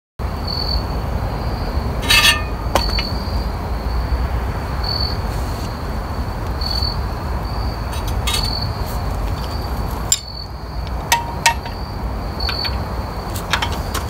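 An insect chirping outdoors, a short high chirp repeated every second or two, over a steady low rumble. A few sharp clinks sound through it, the loudest about two seconds in and twice near eleven seconds.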